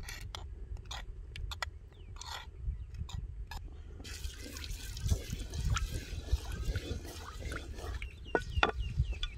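Lumps of solid desi ghee dropping from a clay bowl into an aluminium karahi with soft plops and clicks. From about four seconds in, a wooden spatula stirs the melting ghee with a light crackle, scraping and a few knocks against the pan. A steady low rumble sits underneath.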